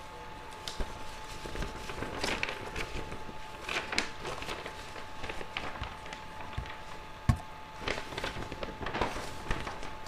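Classroom movement sounds: scattered light knocks, shuffling and footsteps around wooden desks and benches, with one sharper thump about seven seconds in, over a faint steady hum.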